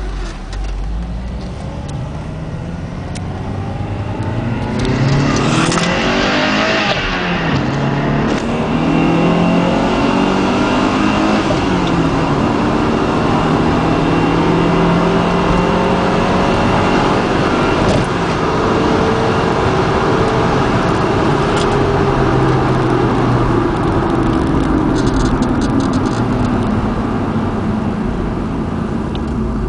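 2003 Honda Civic Si's 2.0-litre K20 four-cylinder engine, breathing through a K&N drop-in panel filter in the stock airbox, revving up with a rush of intake noise about six seconds in, dropping back, then running at higher revs that climb slowly and fall away near the end.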